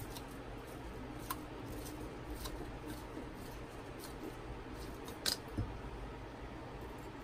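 Small, faint clicks of a hand screwdriver tightening small screws into the metal frame of a resin-printer vat, with a sharper click and a soft thump a little past five seconds.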